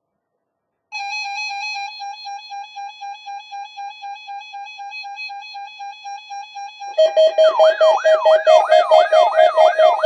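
Electronic emergency-alert alarm tones: a rapidly pulsing beep starts about a second in, and about seven seconds in a lower pulsing tone and a fast, repeating rising-and-falling siren sweep join it, louder.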